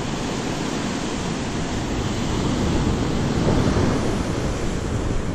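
Ocean surf washing and breaking against the foot of the sea cliff below, a steady noise that swells a little about three seconds in, with wind on the microphone.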